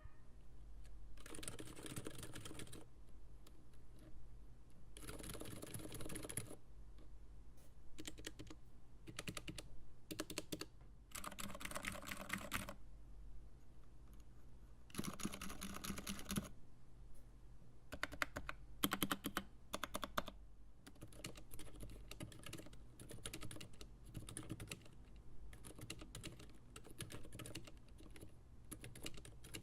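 Typing on a Massdrop Alt mechanical keyboard with Gateron Silent Red linear switches, GMK keycaps and sound-dampening material in the case: faint, muted keystrokes in quick runs of a second or two, with scattered single presses between.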